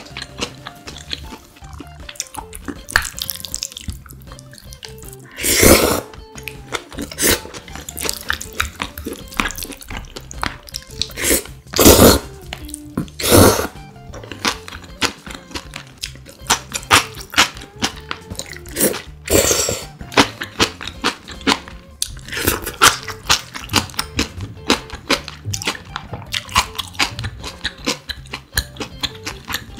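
Close-miked eating of spicy noodles and young radish kimchi: steady wet chewing and crunching clicks, with about five louder, longer slurps spread through.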